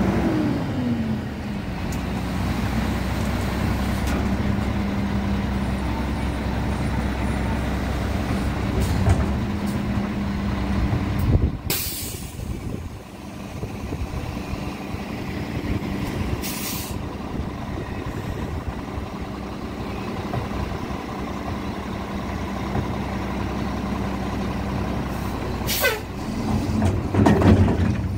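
Mack cabover garbage truck running with a steady engine hum as it moves up to the curb, with a sharp air brake hiss about 12 s in and a second, higher hiss about 17 s in. Near the end the sound grows louder and busier, with a rising sweep, as the truck's automated arm moves out toward the carts.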